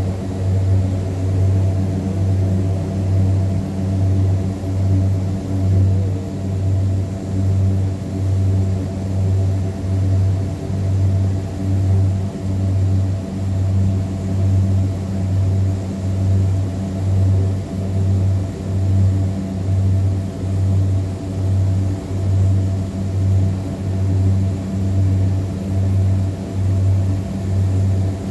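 Curtiss C-46's twin Pratt & Whitney R-2800 radial engines running at low power: a deep, steady drone with a slow, even throb a little under once a second, as the two engines beat against each other.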